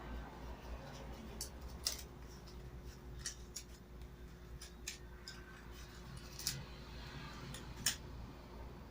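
Paper craft and string being handled on a table: scattered sharp clicks and rustles, about seven over the stretch, the loudest near the end.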